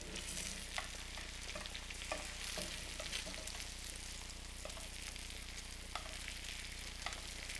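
Butter sizzling steadily in a skillet as a skin-on Chilean sea bass fillet is butter-basted, with a metal spoon scooping the hot butter and clicking lightly against the pan now and then.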